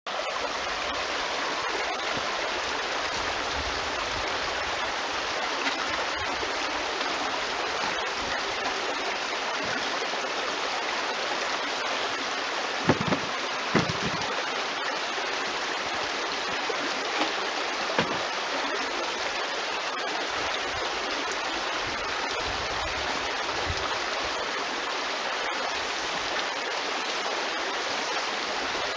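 Small stream running over stones, a steady rushing babble of water, with a few brief thumps near the middle.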